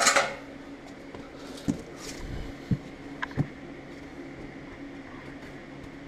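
Handling noise: a brief rustling scrape at the start, then a few light knocks and clatter, over a steady low hum.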